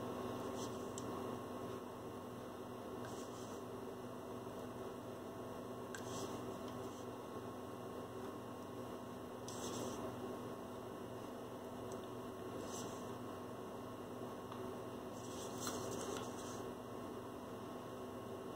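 Steady electrical hum with faint, short swishes every few seconds as a paint brush is flicked to spatter thinned paint onto a canvas.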